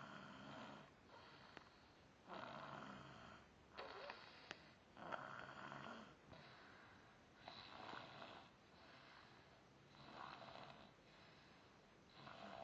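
Faint snoring: a rasping breath roughly every two seconds, with quieter breaths between.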